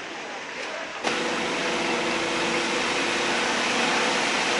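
Buses idling: a steady engine hum under a broad wash of street noise, cutting in suddenly about a second in after a quieter hiss.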